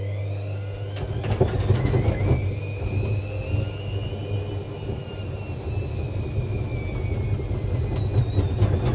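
Hoover VisionDynamic DYN8164D2X washing machine's drum motor whining as it ramps up in a spin, rising for about four seconds and then easing back, with an uneven rumble and knocking from the drum from about a second in: the spin is fighting an unbalanced load and suds lock.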